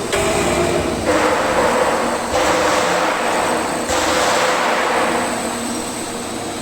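TIG welding arc, set at about 120 amps, burning with a steady electrical buzz and a thin high whine. A harsh hiss swells up sharply about every second and a half and then eases off.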